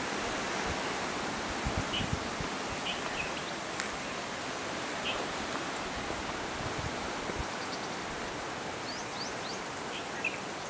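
Outdoor ambience in dry scrub forest: a steady hiss, with a few brief high chirps and a sharp click near four seconds. Low thumps, typical of wind or handling on the microphone, come around two seconds in and again about seven seconds in.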